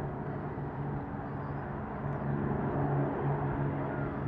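Formation of five military aircraft flying overhead with a steady engine drone that grows somewhat louder about halfway through as the planes draw nearer.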